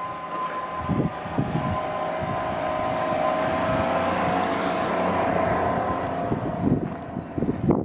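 A vehicle passing on the road, its engine and tyre noise swelling to a peak about halfway through and then fading. Wind buffets the microphone in low thumps.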